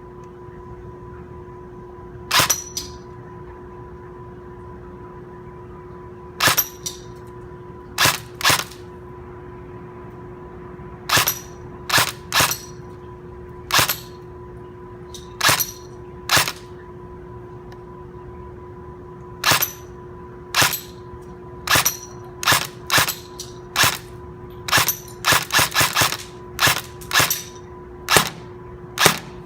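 Airsoft gun firing single shots at an uneven pace, about two dozen sharp cracks, with a quicker run of shots near the end. A steady low hum runs underneath.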